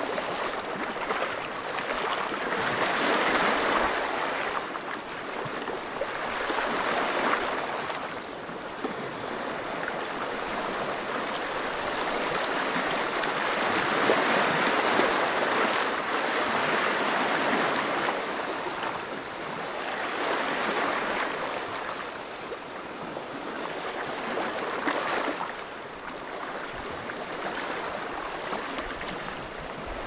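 Black Sea surf washing onto the shore, swelling and falling away in waves every few seconds.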